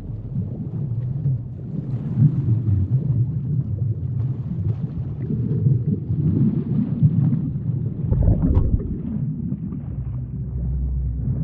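Underwater ambience: a low, shifting rumble with scattered faint crackles. Near the end it settles into a steadier low drone.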